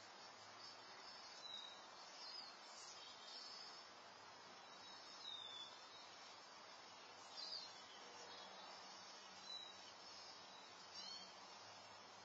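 Near silence outdoors: faint, short high chirps with a falling pitch from small birds, one every second or two, over a steady soft hiss.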